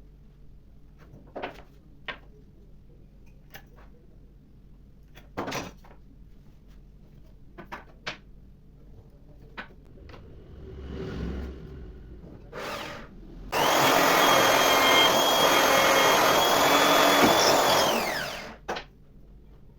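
Light knocks and taps of work on wood, then a handheld power tool's motor runs loudly with a high whine for about four seconds and winds down, its pitch falling as it stops.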